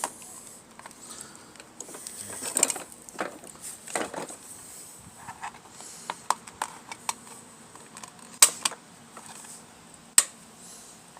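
Irregular clicks, knocks and short scrapes of hand tools and plastic parts being handled while the mower's plastic housing is taken apart, with two sharper knocks, one after about eight seconds and one about ten seconds in.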